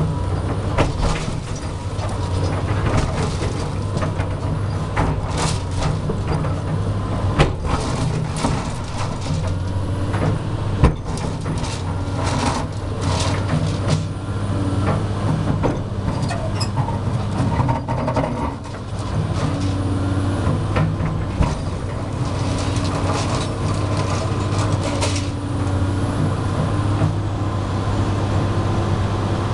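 Tracked hydraulic excavator's diesel engine running steadily as its bucket breaks down a concrete block wall, with repeated sharp cracks and knocks of breaking concrete and falling rubble, the loudest near the middle.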